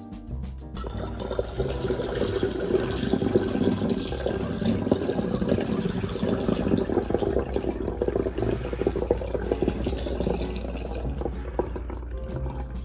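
Citrus sugar syrup pouring through a funnel into a glass swing-top bottle, a steady stream of liquid filling the bottle that starts about a second in. Background music plays underneath.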